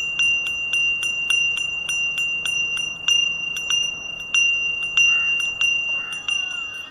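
A Hindu hand bell (ghanti) rung steadily by hand, about three strokes a second, with a bright tone that rings on between strokes. The strokes grow weaker near the end.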